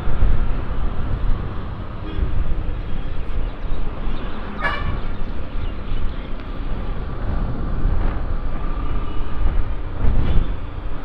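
Riding a motorcycle in traffic in a strong crosswind: wind rumbling on the microphone over the road noise, with a short vehicle horn toot about four and a half seconds in.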